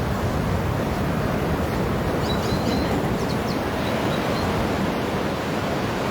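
Ocean surf washing on a sandy beach, a steady rush of breaking waves. A few faint high chirps come in about two to three seconds in.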